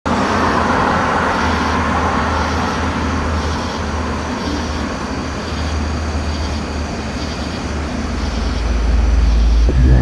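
Steady hiss of distant traffic with a constant low hum, and a deep synthesizer bass tone swelling up over the last two seconds.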